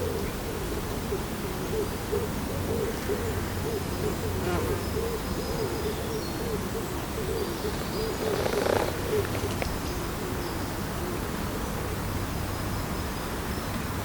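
An animal's low call, repeated two to three times a second, fading out about two-thirds of the way through, over a steady outdoor hiss with faint high chirps. A brief louder rustle or splash comes near the end of the calling.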